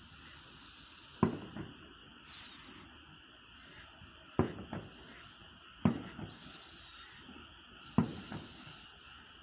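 Aerial fireworks shells bursting at a distance: four sharp booms, each followed by a short echo, over a steady background hiss.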